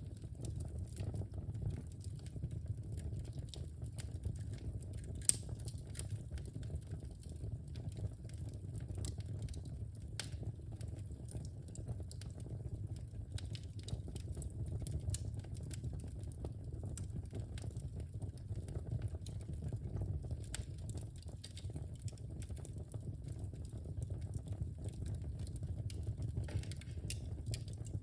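Wood fire crackling in a fireplace: a steady low rumble of the flames with scattered small crackles and pops, one sharper pop about five seconds in.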